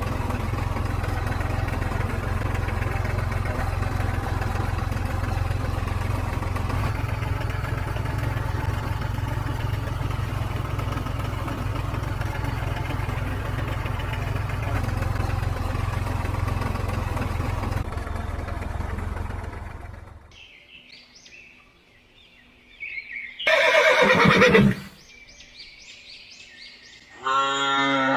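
A steady low engine-like rumble that fades out about twenty seconds in, followed by two loud animal calls, the first sliding down steeply in pitch.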